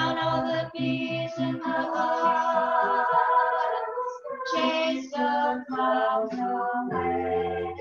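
Voices singing a song with instrumental accompaniment, whose low bass notes pulse about three times a second at first and hold one long note near the end.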